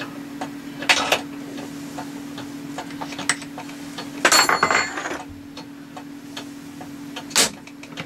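Metallic clicks and knocks of hand work at a small CNC milling machine's spindle during a cutter change, over a steady hum. There are a few louder knocks about a second in, a longer clatter around the middle, and one sharp knock near the end.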